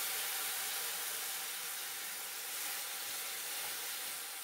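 Water sizzling and simmering in a hot kadhai of oil, spices and dried fenugreek leaves, a steady hiss that slowly dies down.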